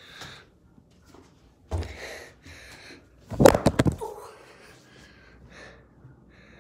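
A dull thump, then about a second and a half later a quick, loud clatter of several sharp knocks, with faint breaths between.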